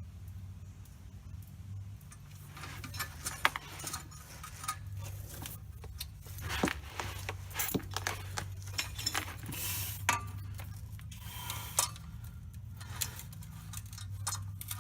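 Scattered metal clinks, clicks and knocks of a heavy manual transmission being handled and worked into place against the engine, over a steady low hum.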